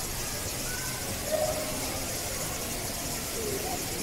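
Steady background hiss, with a few faint short tones and a brief knock about a third of the way in.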